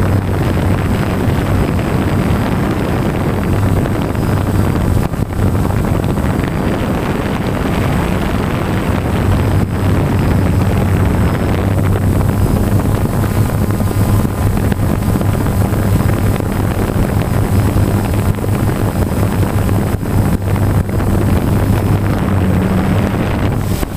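DJI Phantom quadcopter's motors and propellers running steadily in flight: a constant hum with rushing rotor wash, heard loud and close from the camera mounted on the drone itself.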